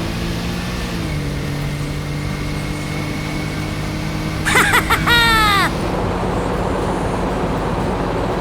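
Steady whine of a radio-controlled construction model's motor, holding a few even tones that drop a step in pitch about a second in, over a constant background hum. About halfway through, a short, loud, high voice-like cry with falling pitch sweeps cuts in for about a second.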